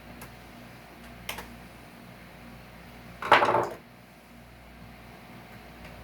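A hand tool pulling staples and nails out of salvaged wood: small metallic clicks, then about three seconds in a half-second rattling scrape of metal on wood.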